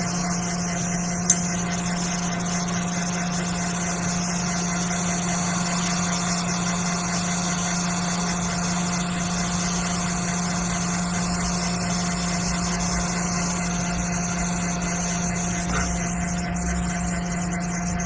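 Hot air rework station blowing 300-degree air to soften the glue around a chip on a logic board: a steady hum with a constant hiss of air. A single sharp click about a second in.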